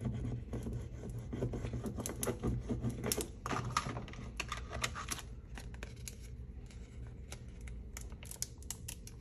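A vinyl decal on transfer tape rubbed down through its backing paper against a cutting mat: irregular scratchy rubbing and small clicks. Later the plastic transfer sheet crinkles as it is picked up and handled, with sparser ticks.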